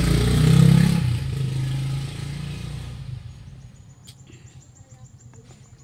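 A motor vehicle's engine passes close by, loudest about a second in, then fades away over the next two seconds. Afterwards only faint clicks remain.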